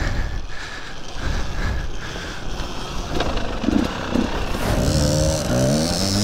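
A two-stroke KTM 250 XC-W dirt bike ridden down a woodland trail, heard as a rough, noisy rush from the bike. About four and a half seconds in, a two-stroke Kawasaki KDX220 dirt bike revs up with rising pitch as it climbs a steep hill, then holds a steady note.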